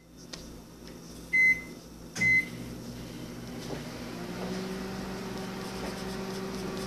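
Microwave oven keypad beeping twice, then the oven starting up and running with a steady hum that grows louder about four seconds in.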